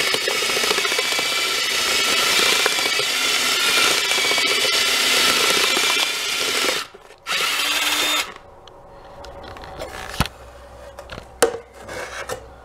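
Electric drill with a paddle mixer running steadily as it whips drywall joint compound in a bucket, with a motor whine. It stops briefly about seven seconds in, runs again for about a second, then stops. A few sharp knocks follow.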